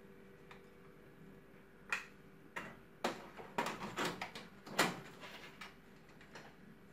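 Xerox WorkCentre fuser unit being pushed into its slot in the copier: a string of sharp plastic-and-metal clicks and knocks over about three seconds as it slides home, the loudest knock near the end as it seats.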